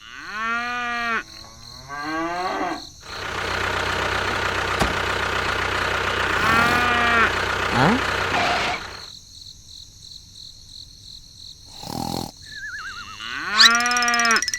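A cow mooing about four times: two calls at the start, one midway and one near the end. Between them a steady machine hum runs for several seconds.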